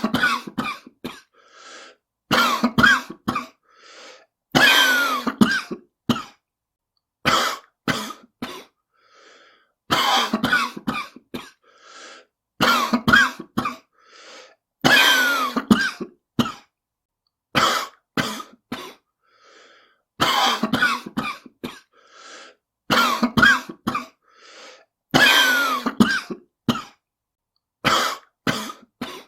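A smoker's cough: a person coughing in repeated fits, each a cluster of several short, harsh coughs, with brief pauses between fits.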